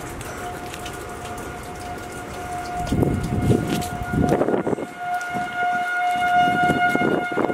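Outdoor tornado warning siren sounding in the distance, holding one steady pitch. From about three seconds in, louder rough noise comes and goes over it.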